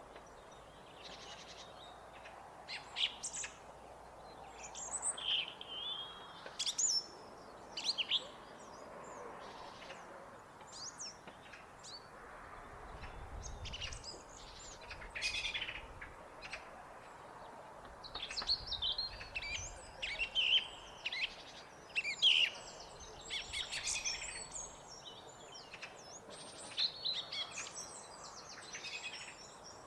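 Song thrush singing: short, varied high phrases in quick bursts, separated by brief pauses, over faint steady background noise.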